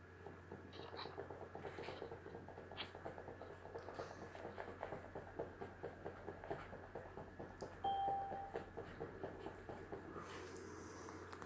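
Faint, rapid crackling clicks over a steady low hum, with a short steady high tone about eight seconds in and a breathy rush of air near the end as the smoker draws on the cigarette.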